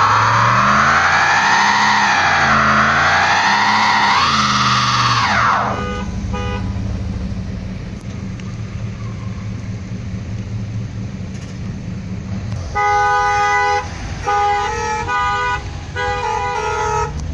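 Pickup truck doing a burnout: its rear tyres squeal with a pitch that rises and falls while the engine revs, then the squeal stops about six seconds in and the engine runs on low and steady. Near the end, vehicle horns honk in several short blasts.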